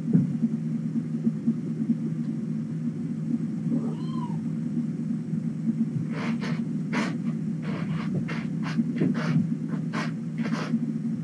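Kittens at play: one short, faint kitten meow about four seconds in, then from about six seconds on a quick run of taps and scratches over a steady low hum.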